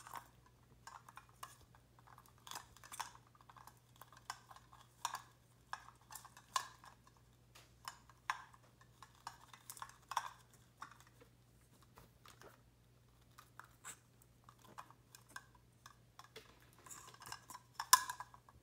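Toys clattering in a bin as a ring-tailed lemur rummages through them: irregular light clicks and knocks, with the loudest clack near the end. A faint steady low hum runs underneath.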